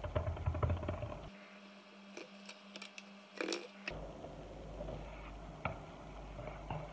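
A few light knocks and taps of a bench scraper and hands cutting and handling croissant dough on a stone countertop.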